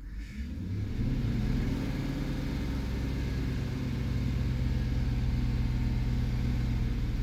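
2009 Chevy Silverado 5.3-litre V8 revved a little and held at a raised, steady speed. The engine is misfiring on cylinder 2, a fault traced to a worn spark plug in that cylinder.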